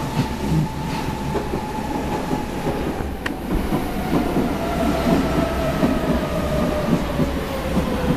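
Berlin U-Bahn type G train running along a platform and slowing, with a whine that falls steadily in pitch as it slows over a rumble and clatter of wheels on the rails.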